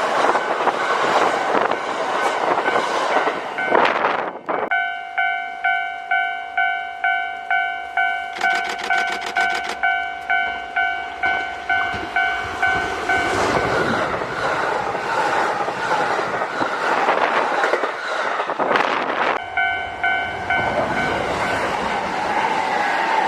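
Kintetsu Osaka Line trains passing a level crossing, with the crossing's warning bell ringing about twice a second. A train's noise cuts off about four seconds in. The bell then rings alone for several seconds until another train passes, its rushing rumble covering the bell. The bell is heard alone again briefly before more train noise near the end.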